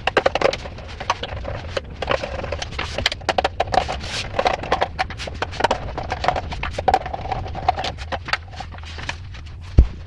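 Handling noise: a dense run of irregular clicks and crackles over a steady low hum, with one sharp knock near the end.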